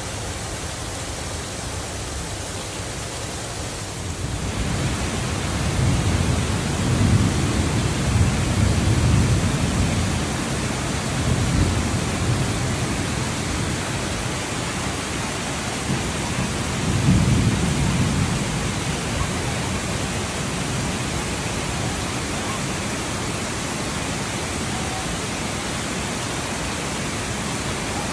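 Heavy rain falling steadily, growing louder about four seconds in. Low rolling thunder rumbles through the middle and again around seventeen seconds.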